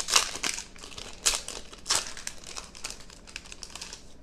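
Foil wrapper of a Pokémon Plasma Freeze booster pack crinkling as it is torn open by hand. It comes in several sharp bursts, loudest right at the start, a little over a second in and about two seconds in, then quieter rustling.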